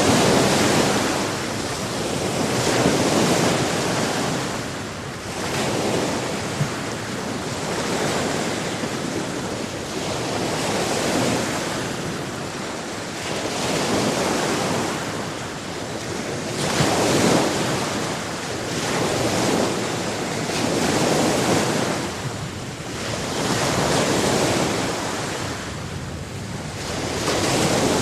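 Sea surf: waves breaking and washing on the shore in repeated swells every two to three seconds, with wind rushing over the microphone.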